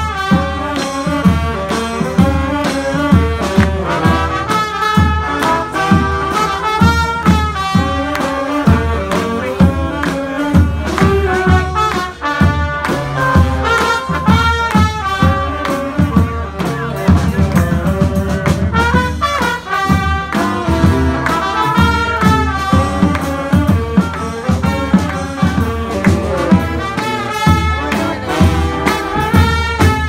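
Street brass band playing: trumpets, trombones, saxophones and a sousaphone carrying the tune over a steady drum beat.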